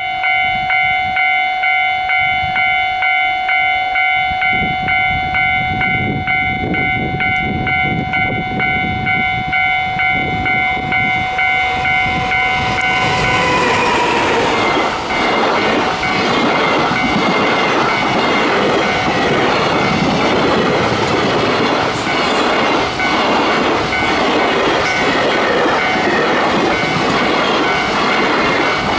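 A level-crossing warning bell dings in a fast, even rhythm, close to two dings a second. About 13 seconds in, the EF210 electric locomotive passes close by, and a long freight train of container flatcars follows, clattering over the rail joints and mostly drowning out the bell.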